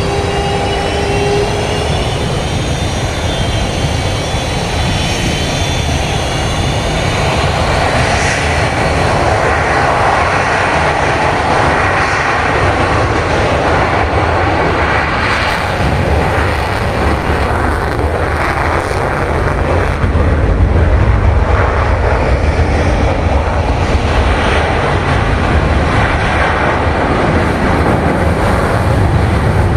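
Sukhoi Su-30 fighter's twin jet engines running loud, with a high whine rising in pitch over the first several seconds over a deep, noisy rumble. The rumble swells about twenty seconds in.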